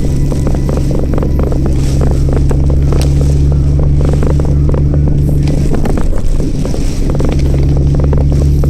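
Toyota Chaser's engine running at a steady pace as the car is driven, heard from inside the car, with scattered sharp ticks over the hum.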